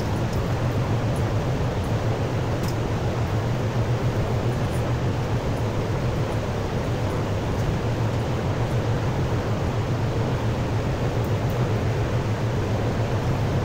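Steady rushing noise with a low hum underneath, even throughout, with no distinct knocks, calls or voices.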